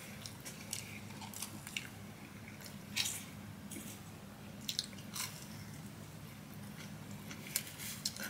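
Close-miked eating of fried fast food: chewing with scattered crisp crunches and crackles, the loudest about three, five and seven and a half seconds in.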